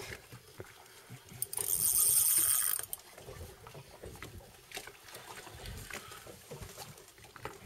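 Spinning reel's drag buzzing for about a second and a half as the hooked fish pulls line off the bent rod. Faint wind and water noise lies under the rest.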